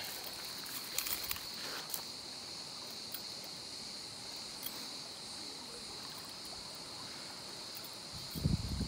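Insects shrilling in one steady high tone over the even rush of a flowing river, with a few light clicks in the first two seconds.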